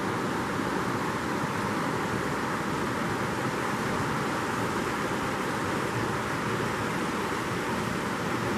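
Steady rushing of a mountain creek's flowing water, an even noise that does not change.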